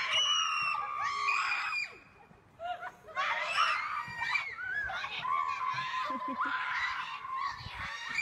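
A child screaming while fleeing a rooster: a long high scream, a short pause, then a run of shorter shrieks ending in a long held scream.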